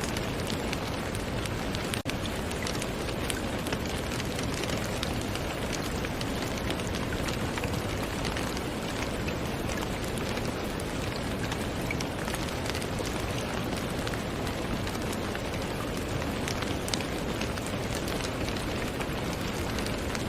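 Steady rain falling, an even hiss dotted with many small ticks of individual drops. There is a brief dip in level about two seconds in.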